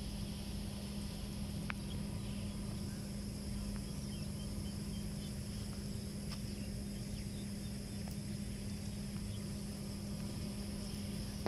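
Insects chirring steadily over a steady low hum, with a few faint clicks and short chirps scattered through.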